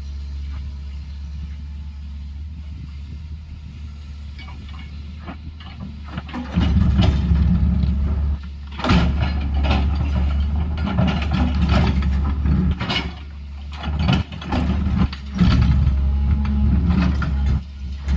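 Tracked excavator's diesel engine running at a low, steady drone, then revving up to a heavier working load about six seconds in. It rises and eases off several times, with clanks and rattles of steel working.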